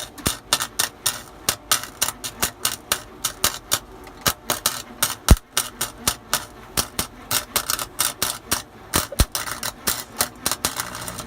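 Harbor Freight wire-feed welder's arc crackling and popping irregularly, several cracks a second, while a bead is laid, with one louder pop about five seconds in.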